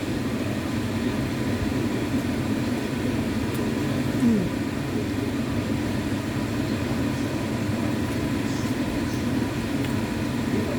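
Steady low rumbling background noise, with a brief falling tone about four seconds in.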